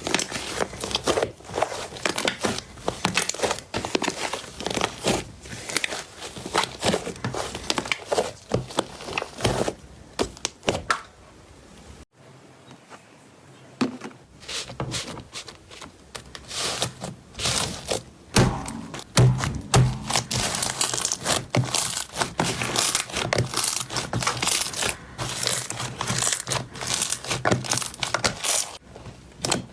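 Slime being squeezed and pressed by hand, making dense wet clicking and crackling, with a short quieter break about twelve seconds in.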